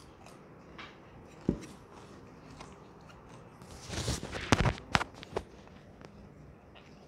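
Close-miked eating of crispy fried chicken: chewing with a cluster of crunches and mouth clicks about four to five and a half seconds in, after a single soft thump about a second and a half in.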